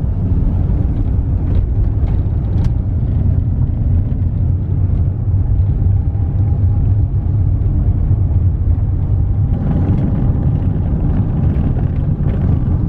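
Truck driving, heard from inside the cab: steady low engine and road rumble, with more hiss joining in near the end.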